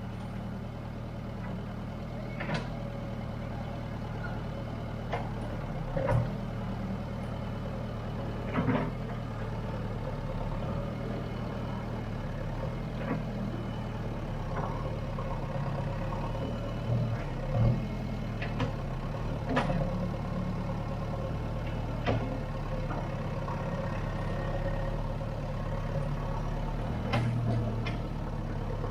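Diesel engine of a JCB demolition machine running steadily, with sharp knocks and clanks every few seconds as it works.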